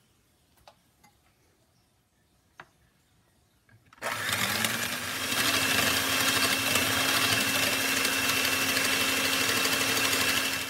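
Electric hand mixer with twin wire beaters switched on about four seconds in, its motor spinning up and then running steadily with a high whine as it whips dissolved gelatin into foam, cutting off near the end. A few faint clicks come before it starts.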